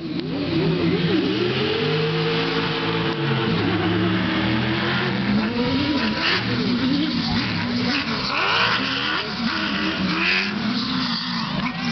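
Engines of a pack of off-road race buggies and trucks revving hard. They hold high revs at the start line for a few seconds, then launch and race past, several engine notes rising and falling over one another.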